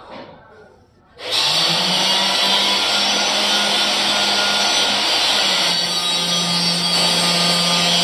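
Electric hand grinder switching on about a second in and running steadily at high speed, with a constant whine and hiss; its pitch drops slightly once partway through, as under light load.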